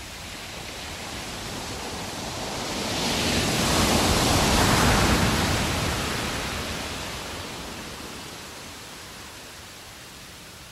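A long rushing whoosh of noise that swells to a peak about four or five seconds in and then slowly dies away.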